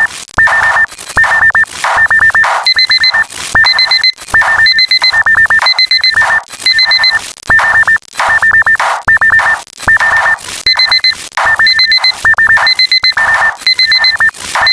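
Rapid electronic beeping in a repeating rhythmic pattern: short high-pitched beeps in quick clusters, with a higher beep layered over some of the groups, like an alarm clock.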